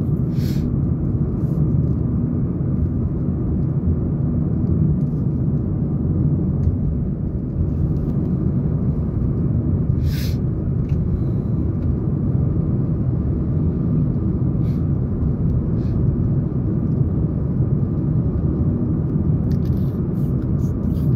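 A car driving at speed, heard from inside the cabin: a steady low rumble of road and engine noise. There is a short hiss near the start and again about ten seconds in.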